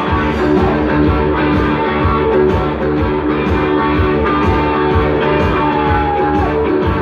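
Loud rock music with guitar over a steady drum beat.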